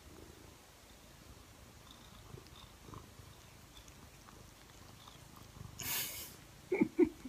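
Domestic cat purring softly while rubbing its head against a person's face. About six seconds in there is a brief burst of noise, then two short pitched calls in quick succession, the loudest sounds.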